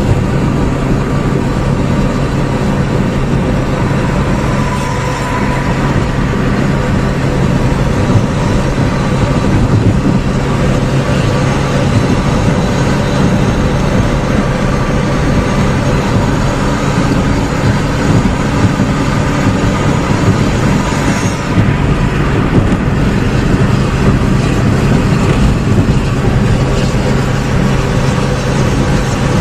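Steady engine drone and tyre and road noise inside a vehicle cruising at highway speed, an even, unbroken hum.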